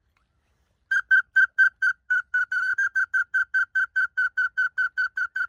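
A duck whistle call blown in a rapid, even series of short notes at one steady pitch, about five a second, starting about a second in, the first few loudest. This is the whistle used to call pintail and widgeon to the decoys.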